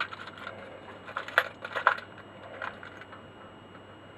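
Small metal sockets clinking against each other and the socket set as sockets are swapped to find one that fits a nut: a handful of sharp clicks, the loudest two about a second and a half in.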